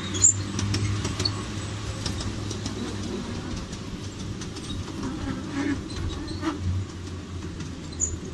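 A 1/6-scale ride-on miniature train running along its track, heard from a passenger seat: a steady low drone with scattered clicks and knocks, one sharp knock about a quarter second in.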